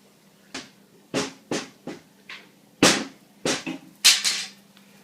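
An irregular series of about eight sharp knocks and thumps, the loudest about three and four seconds in.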